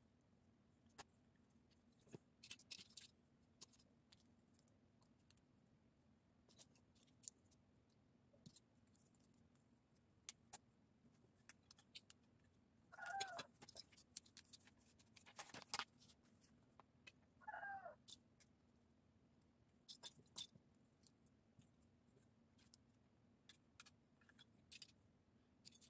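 Soft, sparse clicks and rattles of plastic Lego bricks being handled and snapped together, with a couple of sharper clicks in the middle. Twice, a few seconds apart, a brief pitched animal cry sounds beneath the clicking.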